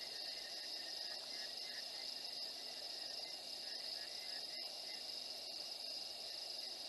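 Steady night chorus of crickets and other insects, a continuous high-pitched trill, with a lower steady drone beneath it.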